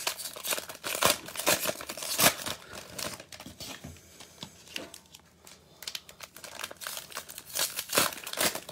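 Cellophane wrappers of Prizm baseball card cello packs crinkling in the hands and being torn open, an irregular crackling rustle that eases off in the middle and picks up again.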